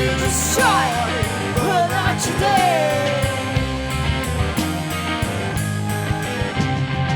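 Rock band music: drums keep a steady beat under a full band, with a lead line sliding down in pitch in the first few seconds.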